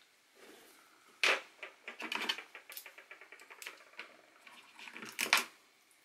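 Hands handling a laptop's plastic bottom cover on a desk: a run of clicks, taps and short scrapes, with a louder knock about a second in and another near the end.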